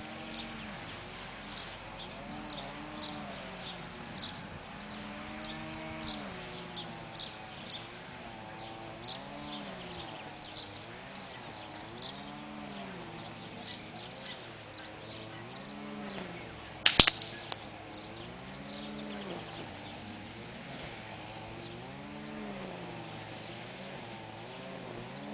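A single shot from a Diana 75 spring-piston air rifle about two-thirds of the way in: a sharp crack with a smaller click right after it. Beneath it a low hum rises and falls in pitch about once a second, with faint high ticking.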